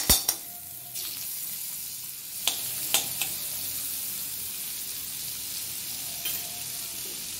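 A spoonful of butter sizzling steadily as it melts in a hot metal karahi. Sharp clicks at the start as the metal spoon knocks the butter off against the pan, and a few single clicks later.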